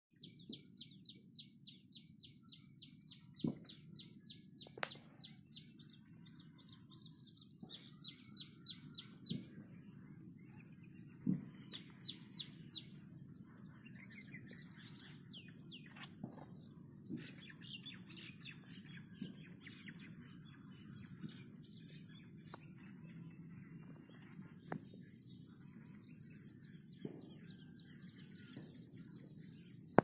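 Several birds chirping and calling in the open, with a fast run of evenly repeated chirps in the first few seconds, over a continuous high-pitched whine and low background noise. A few sharp clicks stand out.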